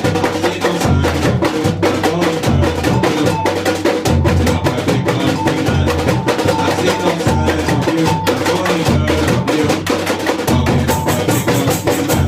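Samba bateria playing a steady groove: deep surdo bass-drum strokes on an even pulse under dense, clacking higher percussion.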